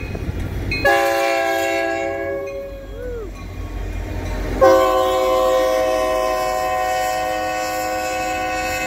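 Union Pacific diesel locomotive's multi-tone horn sounding as it passes close by: a steady blast of about two seconds starting about a second in, then a longer blast from about halfway that holds to the end. A low rumble from the passing locomotive and cars runs underneath.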